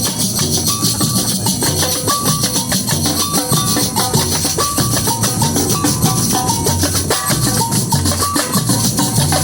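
Samba batucada drum section playing: deep bass drum beats under a dense, fast, even rattle of shakers and high percussion.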